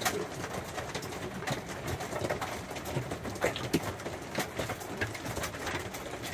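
Rain and scattered hailstones hitting a truck camper's roof, heard from inside: a steady patter with irregular sharp hits.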